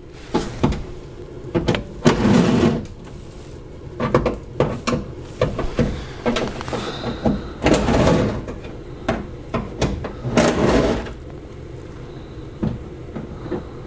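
Impact wrench running in several short bursts, backing out the small 8 mm screws of an exhaust heat shield, with clicks and knocks of tools against metal in between.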